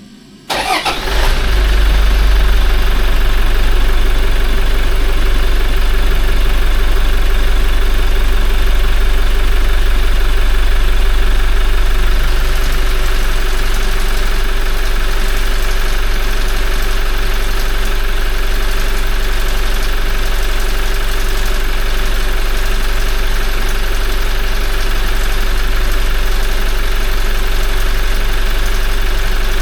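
Toyota 1GD-FTV 2.8-litre four-cylinder turbodiesel, freshly refilled with oil, starting half a second in and then idling steadily. The idle drops slightly about twelve seconds in.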